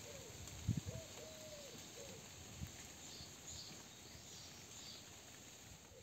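A dove cooing softly: a short, a long and a short coo in the first two seconds. Faint high chirps of small birds come in the middle, and a low thump just under a second in is the loudest sound.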